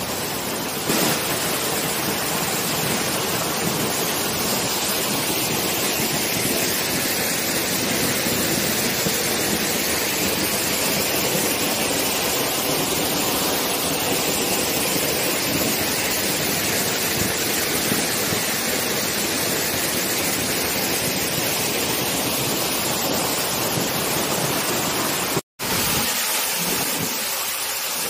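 A tall waterfall: water falling from a high cliff face gives a steady, dense rush. The sound cuts out for an instant near the end.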